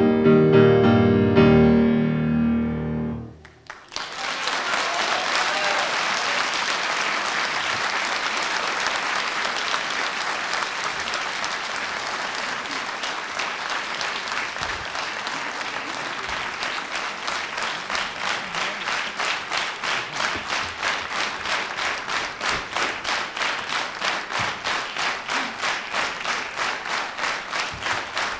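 A grand piano plays its last chords, stopping about three and a half seconds in. An audience then applauds, and in the second half the clapping settles into steady rhythmic clapping in unison, about three claps a second.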